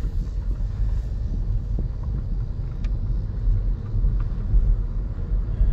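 Low, steady rumble of a car heard from inside the cabin.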